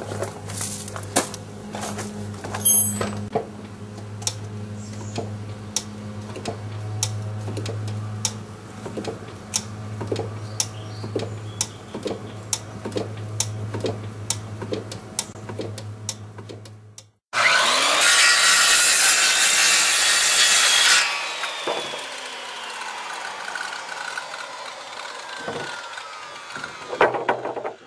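Drum brake self-adjuster clicking as it ratchets while the emergency brake is worked, about one or two sharp clicks a second over a low hum. After a brief break, a loud rushing hiss for a few seconds, then quieter knocks.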